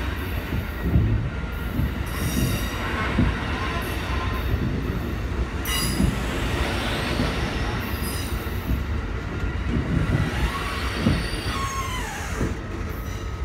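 Amtrak Coast Starlight Superliner passenger cars rolling past as the train departs: a steady rumble of wheels on the rails, with frequent low knocks and several brief metallic wheel squeals. One squeal near the end slides down in pitch.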